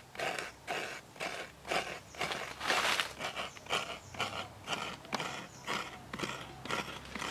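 Half a coconut being scraped against the serrated metal blade of a bench-mounted coconut grater, shredding the white flesh. It makes a rhythmic rasping stroke about two to three times a second, with a longer, louder scrape about three seconds in.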